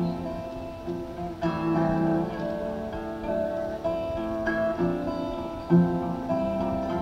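Acoustic guitar strummed, its chords ringing on, with fresh strums about a second and a half in and twice more near the five- and six-second marks; heard on a thin-sounding 1970s audience cassette recording.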